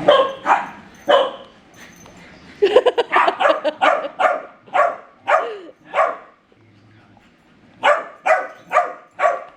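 Puppies barking in play: short, sharp barks in three runs, a few at the start, a quick string of about ten in the middle, and four or five more near the end.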